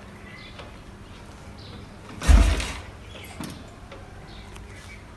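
A single heavy thump about two seconds in, lasting about half a second, from a kick on the Royal Enfield Bullet Electra's kick-start lever. The engine turns over without catching, and there is no running engine before or after, so this is a failed start attempt.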